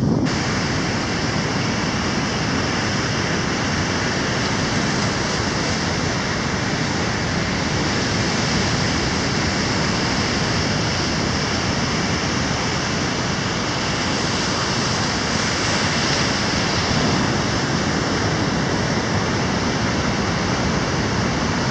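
Ocean surf breaking on a sandy beach: a steady, unbroken rush of waves.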